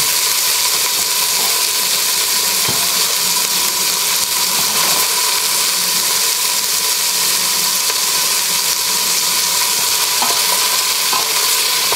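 Chopped onions, celery and garlic sizzling steadily as they sweat in a hot stainless-steel stockpot. A wooden spatula stirs them at the start and again near the end, with a few light scrapes.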